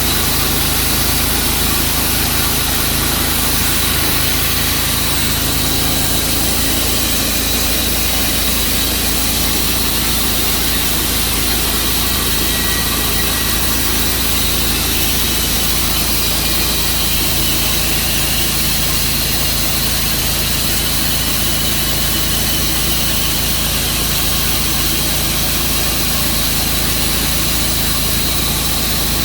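Portable band sawmill's engine running steadily at a constant pitch.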